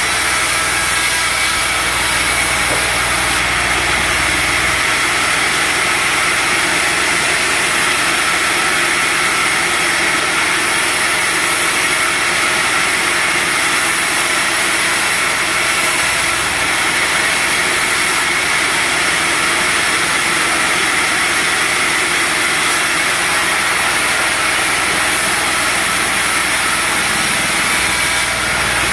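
A sawmill running steadily: its engine and saw make a loud, continuous drone with a prominent high band that holds constant throughout.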